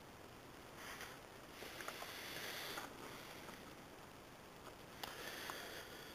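Faint handling noise: soft rustling in three short stretches, with a few tiny ticks.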